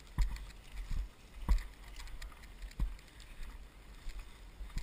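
Walking footsteps on dirt and grass with gear rattling, a few irregular thumps and clicks, over wind buffeting the microphone as a low rumble.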